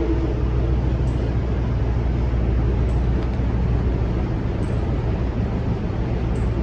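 MP15AC diesel locomotive running with a steady low rumble. The tail of its horn blast cuts off right at the start.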